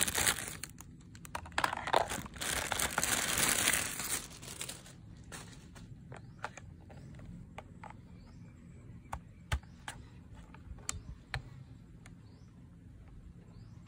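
Clear plastic packaging bag crinkling loudly as toy guns are pulled out of it for the first few seconds. After that, scattered light clicks and knocks of hard plastic toy rifle parts being handled.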